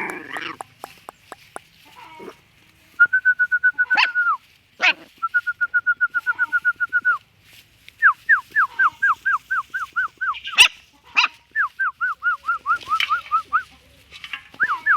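Dog whining: a held high whine, then runs of quick, falling whimpers several a second, with a few faint clicks at the start.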